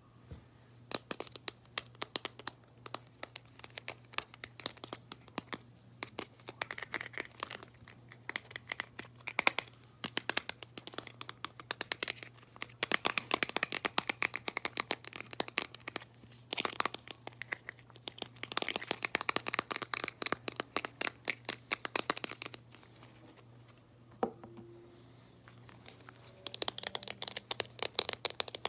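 Slime being squeezed and crushed in a plastic tub held close to the microphone: dense crunching and crackling in bursts of a few seconds, with short lulls between them.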